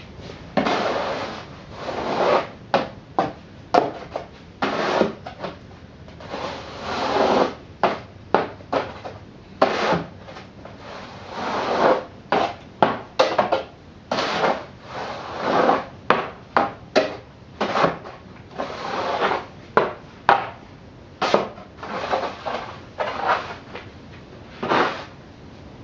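Repeated scraping of snow: irregular strokes, some long and drawn out, others short and quick, with brief pauses between them.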